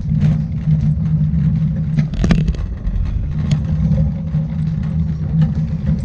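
Steady low rumble of a road vehicle in motion, with a few short knocks; the sharpest comes about two seconds in.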